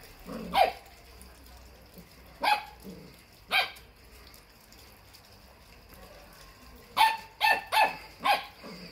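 Pembroke Welsh Corgi puppy barking in short, sharp, high barks. There is one bark near the start and two more about a second apart, then four quick barks in a row near the end.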